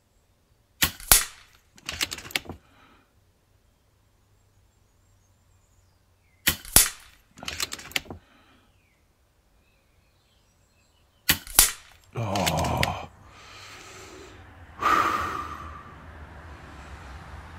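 FX Impact M3 .177 sub-12 ft-lb PCP air rifle firing three shots about five seconds apart, each a sharp crack paired about a second away with a second sharp click from working the action. Quieter, longer breathing and handling noise follows in the last few seconds.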